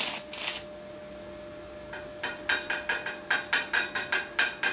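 Stick-welding arc crackling briefly on thin steel exhaust pipe with a 2.5 mm general-purpose rod, then going out. About two seconds in, a quick run of sharp metallic taps, three to four a second, with the pipe ringing, as the electrode is tapped against the pipe to strike the arc again.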